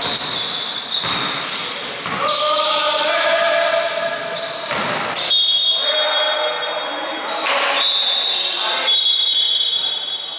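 Basketball play on a hardwood court in a large echoing hall: sneakers squeak sharply and often, the ball bounces, and players' voices call out.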